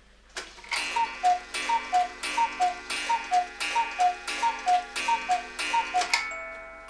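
Black Forest cuckoo clock striking the hour: its cuckoo sounds a falling two-note call over and over, about every two-thirds of a second, each call with a clack of the mechanism.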